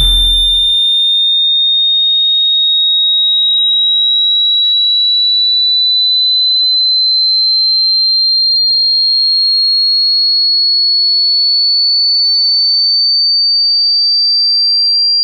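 Hearing-test tone: a single high, pure sine tone held at a steady level and gliding slowly upward in pitch. A brief low rumble fades out about a second in.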